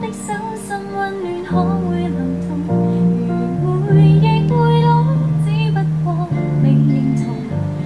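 A song with strummed acoustic guitar, a steady bass line and a woman singing, played back through a small full-range loudspeaker.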